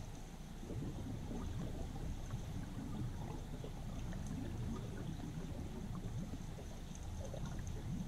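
Flowing river water heard underwater through a GoPro's waterproof housing: a steady, muffled low rush with scattered faint ticks and clicks.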